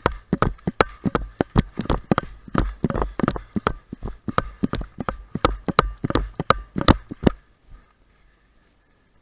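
Running footsteps, fast and slightly uneven at about three strides a second, each landing a sharp thud, stopping about seven seconds in.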